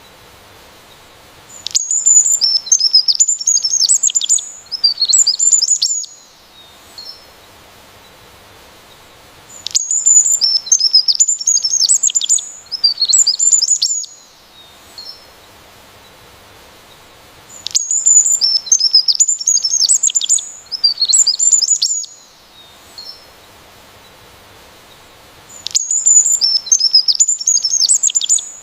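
A songbird singing: a rapid, high-pitched chirping phrase about four seconds long, repeated four times at even eight-second intervals, with a few single chirps in the gaps.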